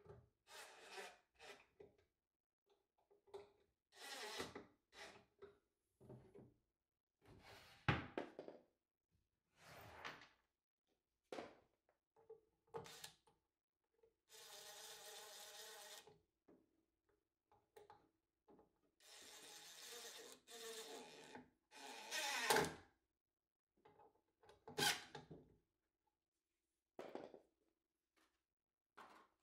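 Quiet handling sounds of metal drawer pulls being fitted by hand to a wooden dresser drawer: scattered clicks, taps and rubs, with a few sharper knocks and some longer scraping or sliding sounds lasting a second or two.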